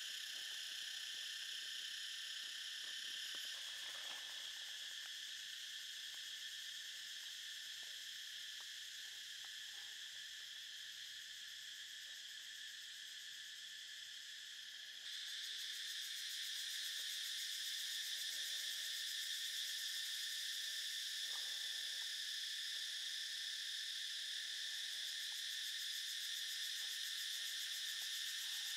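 Steady high-pitched shrilling of a forest insect chorus, which steps up in loudness about halfway through, with a few faint clicks.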